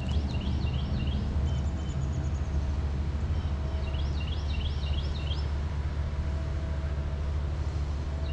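A songbird singing, two quick runs of repeated high slurred notes, over a steady low rumble of outdoor noise.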